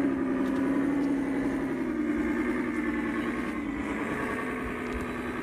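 Simulated diesel truck engine from a radio-controlled model truck's sound module, idling steadily through its small speaker.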